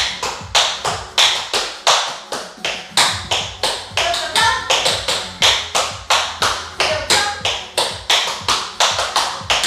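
Tap shoes striking a wooden floor in quick rhythmic runs of heel and toe taps, a few to several sharp clicks a second.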